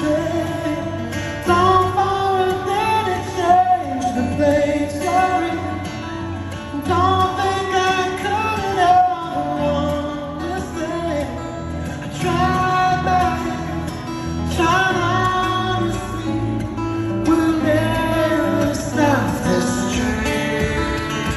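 Live solo acoustic guitar music from the stage, heard through the arena: a melody line over steady low bass notes.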